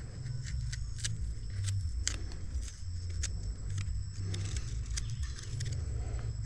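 Knife cutting and scraping rotten tissue out of a dragon fruit stem: a scatter of short sharp clicks over a steady low rumble.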